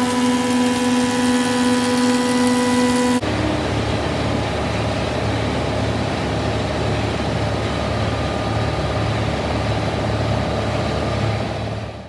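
Wood-processing machinery at a sawmill running: a steady, unchanging whine for about three seconds, then a sudden change to a rougher machine noise with a pulsing low hum, which fades out at the end.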